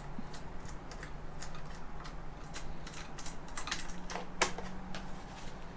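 Irregular small clicks and taps of plastic and metal parts being handled while a motorcycle's tail section is dismantled, several a second, over a faint steady low hum.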